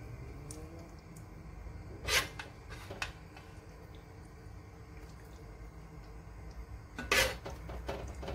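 A serving spoon scraping and clinking against a metal cooking pot and serving dish while curry is spooned out, with two sharp clinks, one about two seconds in and one near the end, over a low steady hum.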